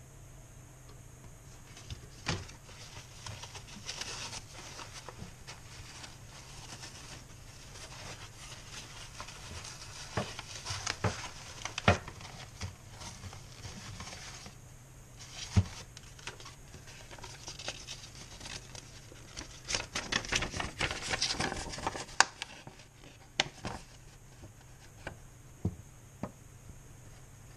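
Handling noise from unpacking a tool: a plastic tool case and a paper instruction sheet being handled, giving scattered clicks and knocks with paper rustling. The rustling is densest about twenty seconds in.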